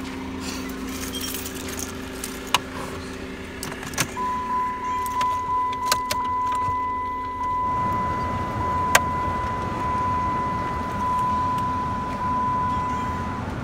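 Chrysler 300C SRT8 cabin: a few sharp clicks, then a steady electronic warning tone held for about nine seconds. Partway through, a low hum stops and a steady rushing noise takes over.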